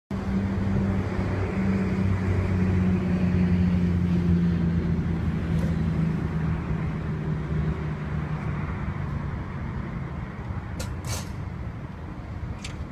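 A low, steady engine-like hum over a rushing noise, fading away over about nine seconds, with a few sharp clicks near the end.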